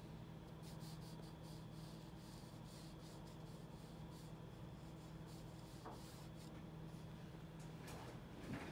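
Faint paintbrush strokes rubbing across sketchbook paper, over a steady low hum.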